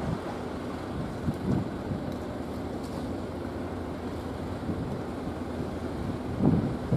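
Wind buffeting the microphone over a low, steady rumble, swelling louder near the end.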